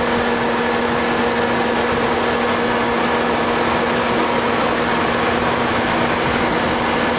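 Saemaeul-ho diesel multiple unit power car standing at idle: a steady drone of engine and cooling fans with a few held tones over it.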